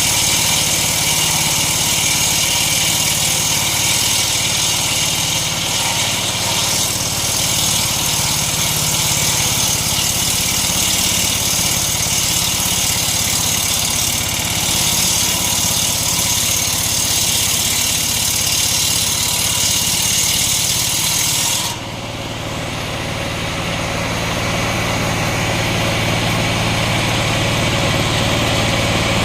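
Small engine running steadily, driving a homemade circular saw ripping coconut wood, with a loud high hiss of cutting over it. About three-quarters of the way through the cutting hiss stops suddenly; the engine runs on, its level dipping and then slowly climbing back.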